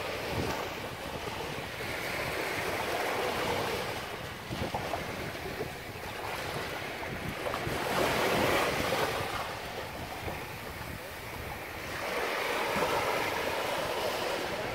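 Small waves breaking and washing up onto a sandy beach, the surf swelling three times a few seconds apart, with wind buffeting the microphone.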